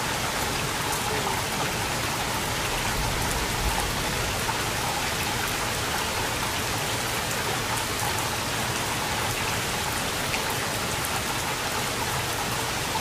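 Steady thunderstorm rain, an even hiss with scattered small ticks of drops striking close by.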